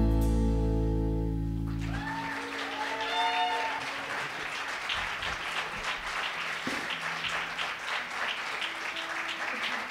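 The final chord of two acoustic guitars and an upright bass rings out for about two seconds and stops. An audience then applauds, with a few cheers near the start of the applause.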